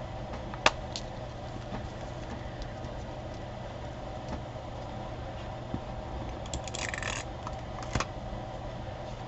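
Paper craft pieces being handled and pressed into place on a desk: scattered light clicks and taps, with a brief rustle of paper about seven seconds in, over a steady low hum.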